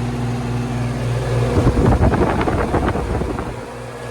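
Goodman air-conditioner condenser unit running with its newly replaced fan motor, giving a steady electrical hum. About a second and a half in, rushing air buffets the microphone for roughly two seconds, louder than the hum, then the hum alone returns.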